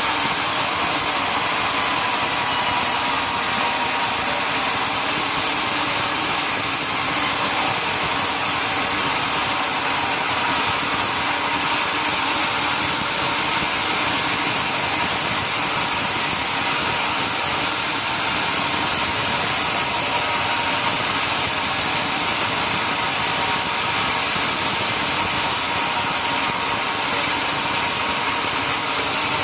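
Sawmill machinery running steadily, a continuous mechanical noise with a high whine on top and no pauses or changes.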